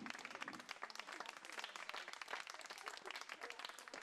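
A crowd applauding: many hands clapping, densely and without a beat.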